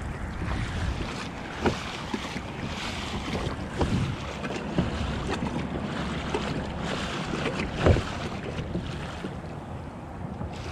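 Wind buffeting the microphone over water lapping at a kayak, with a few sharp knocks, the loudest about eight seconds in.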